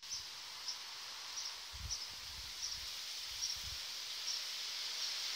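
Outdoor ambience: a steady high hiss with a short high chirp repeating about every three-quarters of a second, from a bird or insect, and a few soft low rumbles.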